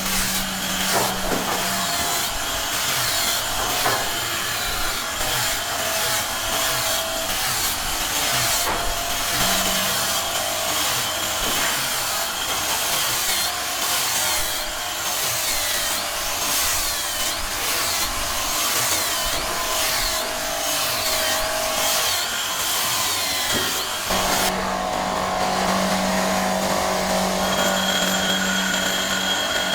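Tools working wood: a dense run of rough scraping, rasping strokes. About 25 seconds in, a power tool's motor starts running with a steady hum and whine.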